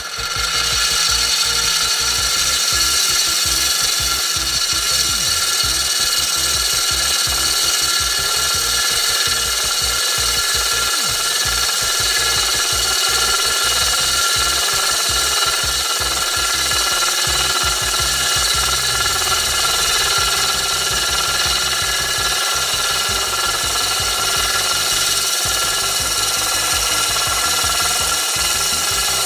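Cordless drill running steadily with a diamond hole saw grinding into a glass jar, a constant whine that does not let up.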